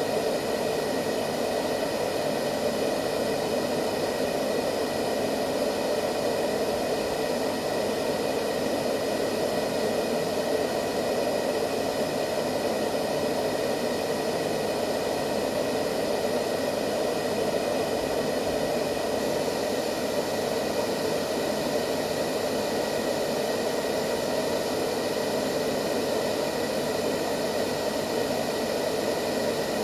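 Steady, unbroken white noise for lulling a baby to sleep: an even rushing hiss, strongest in the low-middle range, with faint steady tones above it.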